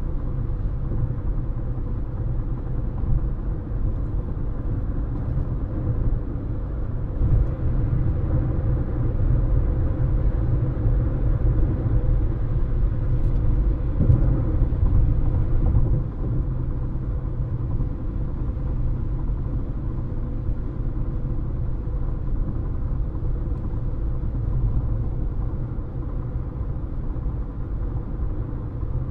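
Steady low rumble of a car driving at speed, mostly tyre and road noise, with a faint constant hum.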